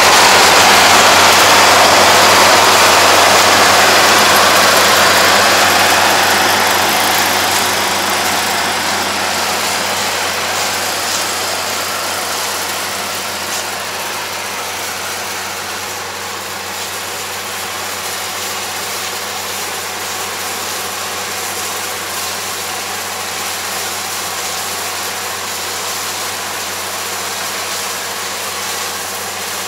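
Yanmar AE447 combine harvester running as it harvests wheat, a steady engine-and-machinery noise. It is loudest at first, close by, and grows fainter over the first fifteen seconds or so as the combine moves away, then holds steady.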